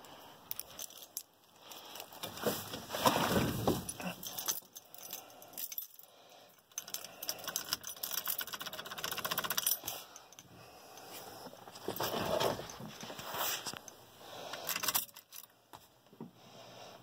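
A bunch of keys jangling and clinking in irregular bursts, loudest a few seconds in and again near the end, with no engine running yet.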